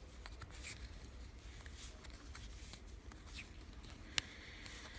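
Faint knitting sounds: wooden knitting needles tapping and sliding against each other and yarn rustling as stitches are worked, with scattered light clicks, the sharpest about four seconds in, over a low steady rumble.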